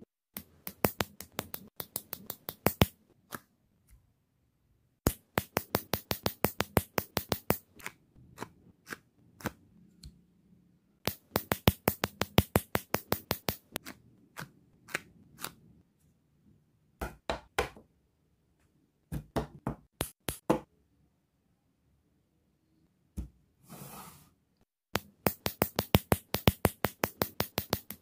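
Plastic building bricks clicking and snapping together in quick, evenly spaced runs of clicks separated by short pauses. A brief scratchy rustle comes just before the last run.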